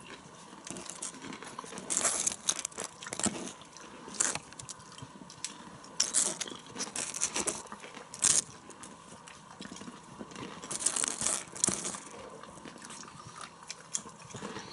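A person chewing popcorn with crunches, and crinkling of the foil-lined popcorn bag as a hand reaches in, in short bursts every couple of seconds.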